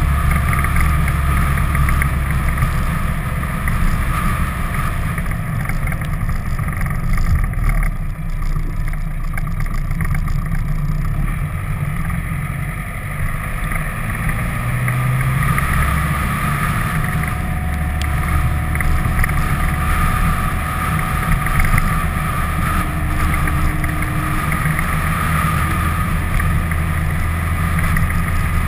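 Vehicle driving steadily on a winding mountain road: a low engine drone mixed with rushing wind and road noise on an outside-mounted action camera's microphone.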